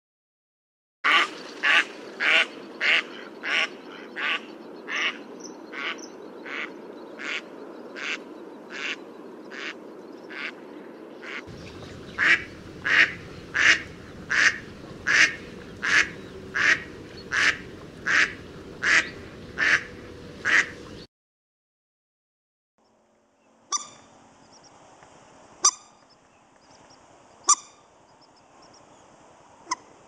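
Mallard ducks quacking: two long runs of loud, evenly spaced quacks, about two a second, the first run fading as it goes. After a short silence, a common moorhen gives a few sharp single calls a couple of seconds apart.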